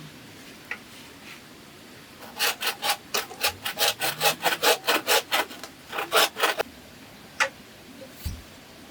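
Hand saw cutting bamboo: a run of quick back-and-forth strokes, about four a second, a brief pause, then a few more strokes. A single sharp knock follows near the end.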